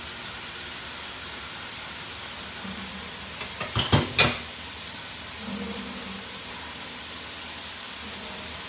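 Mushrooms and meat frying in a pan on high heat: a steady sizzle, with a few sharp knocks about four seconds in.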